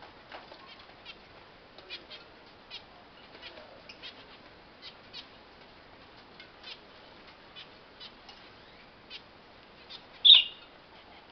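Caged finches giving short, sharp calls, one or two a second, with one much louder call just after ten seconds.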